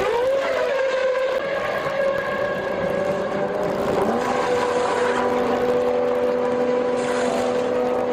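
Formula One V10 engines: one car's engine drops in pitch and then holds at steady revs, and a second engine at a lower, steady pitch joins about four seconds in.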